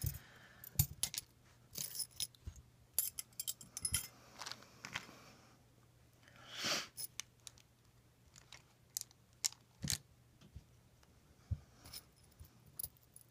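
Small metal hand tools (precision screwdrivers, scissors and clamps) clinking and clacking against each other in irregular clicks as they are picked up and sorted, with a brief rustle about halfway.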